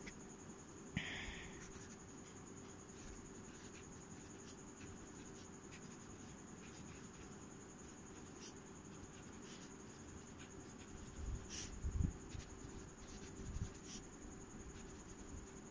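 Fountain pen nib scratching faintly across ruled paper as a line of handwriting is written. There are a few soft low knocks about eleven to thirteen seconds in.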